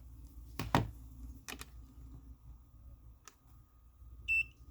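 A few sharp clicks of test probes and wires being handled, then near the end a short high beep from a continuity tester, signalling a closed circuit through the wire connector.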